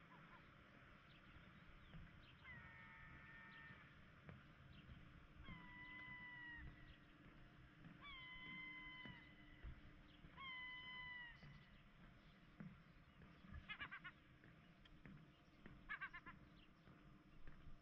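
Faint animal calls: four drawn-out calls of about a second each, every one held on a single pitch and dropping off at its end. Two short, rapid trilling bursts follow near the end.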